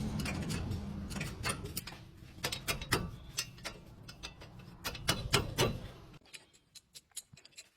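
Car engine running low with irregular clicking and ticking over it, then shut off about six seconds in, leaving a few scattered clicks.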